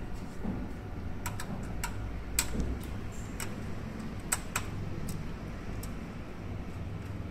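Scattered small sharp clicks and ticks, about ten, irregularly spaced, as a small screwdriver works the metal screw terminals of a switching power supply to clamp a power cable's wires. A low steady hum underneath.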